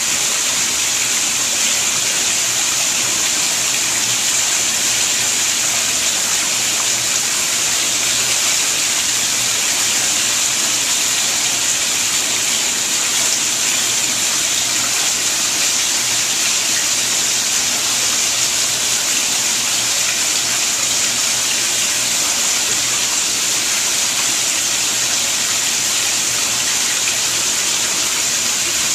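Koi pond water running and splashing steadily, an unbroken rush with no pauses.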